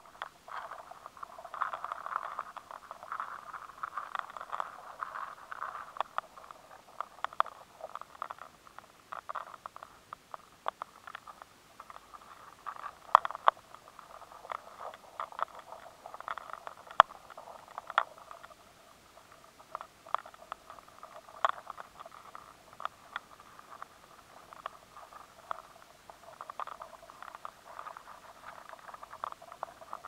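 Maize weevils gnawing through durum wheat grains: an irregular crackle of tiny sharp clicks and scrapes, with a few louder clicks scattered through. These are newly formed adults chewing their way out of the kernels they grew up in, picked up by a high-sensitivity recording.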